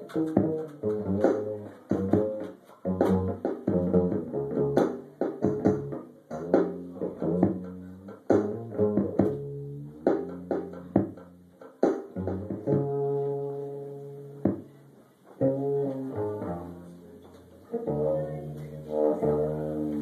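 Cello and an amplified electric instrument playing an improvised duet: a run of short, sharp low notes, then longer held notes from about twelve seconds in.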